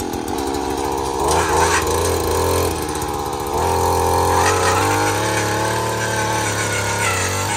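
Gas-powered earth auger's small engine running under load as the bit bores a post hole into soil, its pitch shifting up and down a few times as the load changes.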